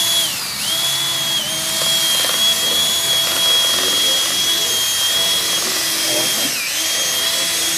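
Cordless drill spinning a TailWell 2 tail-cleaning attachment in a cow's tail hair, its motor whining steadily. The pitch dips briefly twice, once just after the start and once near the end, as the motor slows.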